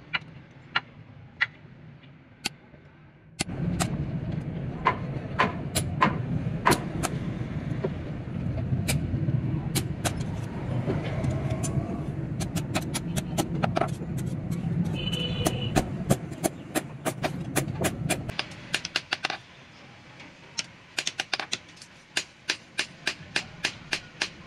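Hand hammer striking a steel knife blank on a small steel anvil: sharp metallic taps at an uneven pace, then a quick, even run of lighter taps near the end. A steady low rumble runs under the taps through the middle part and stops about three-quarters of the way through.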